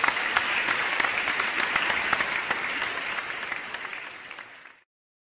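Crowd applause: dense clapping that tapers off and then cuts off abruptly near the end.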